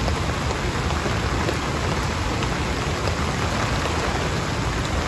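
Pouring rain falling steadily, a dense even hiss of drops with no letup.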